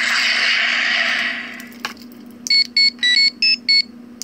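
Power Rangers Legacy Communicator toy playing its built-in sound effects through its small speaker: a loud hissing, static-like rush that fades out over about a second and a half, then a quick run of about six short electronic beeps at changing pitches.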